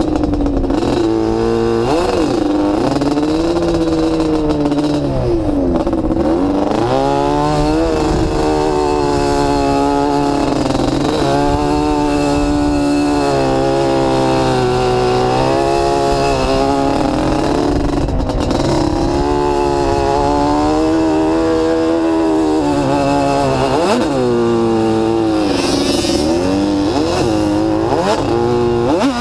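ATV engine running hard under the rider as it crosses sand dunes, its pitch rising and falling over and over with the throttle and gear changes, dropping and climbing again several times.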